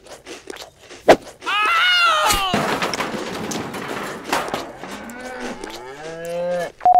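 Cartoon sheep bleating: a long wavering bleat about a second and a half in, and a second, lower bleat near the end. A sharp knock comes about a second in.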